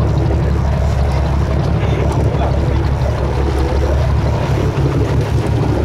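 Fishing boat's engine running with a steady low hum, with wind noise on the microphone over it.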